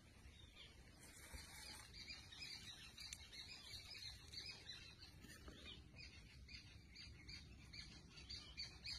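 Faint birds chirping: short, repeated chirps over a low, steady background hum.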